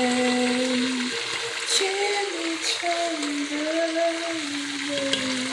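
A man singing or humming a slow tune in long held notes that step up and down in pitch, over the steady sizzle of food deep-frying in hot oil.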